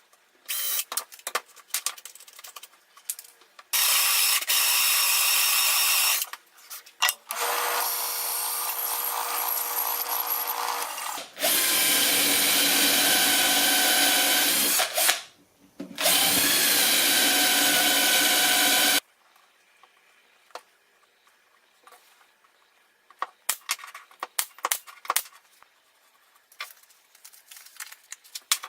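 Electric woodworking power tools run in four bursts of a few seconds each, with a steady motor whine. Scattered light clicks and knocks follow.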